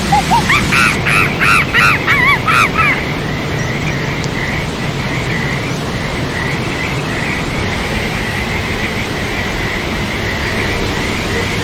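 A bird calls a quick run of arched notes that climb in pitch, about three a second, for the first three seconds. Faint chirping then carries on over a steady rushing noise.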